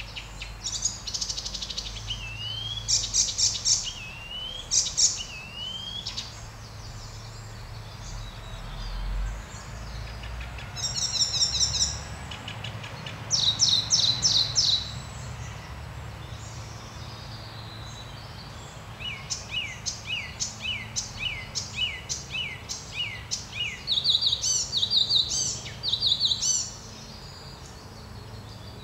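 Icterine warbler singing in bursts of a few seconds, separated by short pauses. The phrases are fast runs of repeated chattering notes and rising whistles, a varied song that mimics other birds' calls, among them an oystercatcher's.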